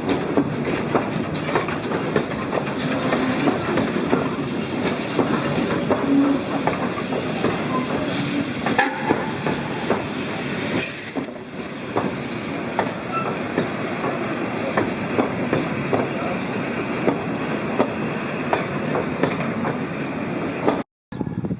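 The Cockle Train's carriages running along the track: a steady rumble of wheels on rail with many sharp clicks over the rail joints and a little wheel squeal.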